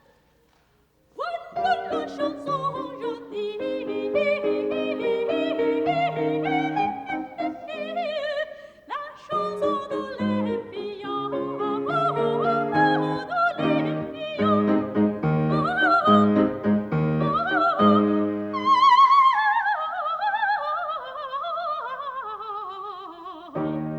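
Coloratura soprano singing an operatic aria over piano chords, coming in about a second in after a brief silence. There are high notes with a wide vibrato, a short break about nine seconds in, and a string of falling runs near the end.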